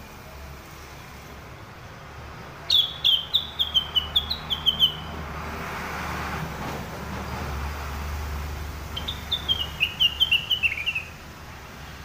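Caged bulbul, sold as cucak rengganis, singing two bright bursts of quick chirping notes, about a second in then again near the end, each lasting about two seconds and stepping down in pitch. A soft rushing noise swells and fades between the bursts.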